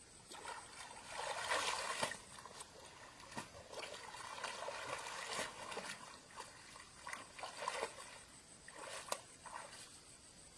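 Water splashing and sloshing in irregular swells, loudest about a second and a half in, with a few sharp light knocks.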